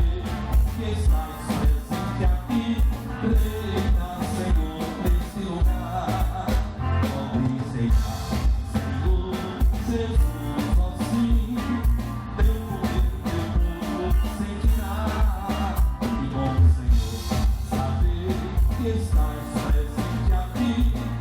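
Live band music with drums keeping a steady, even beat under guitars and other instruments.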